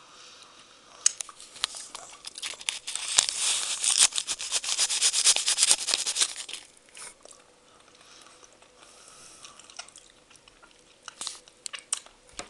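Close mouth sounds of eating a sour candy stick coated in sour powder: a dense run of wet smacking and crackling clicks for a few seconds, then scattered smacks near the end.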